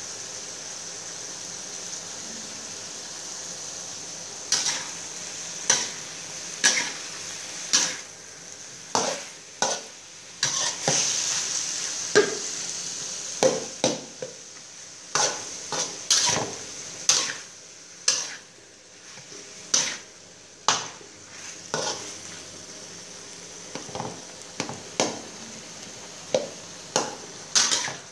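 Eggplant and minced pork sizzling steadily in a wok. From about four seconds in, a metal spatula scrapes and knocks against the pan in irregular strokes as the food is stir-fried.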